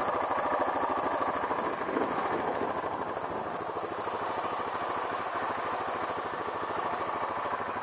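Yamaha Kodiak 450 ATV's single-cylinder engine running steadily at low revs as the quad moves slowly.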